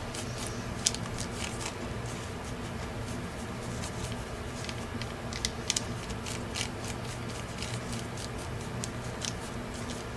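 Brush working thinned paint across a paper page: soft, scratchy strokes and small irregular taps and clicks, over a steady low hum.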